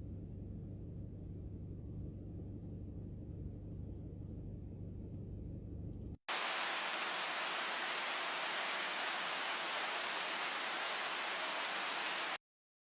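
A low, steady rumble for about six seconds, then after an abrupt cut a steady hiss of heavy rain that stops suddenly near the end.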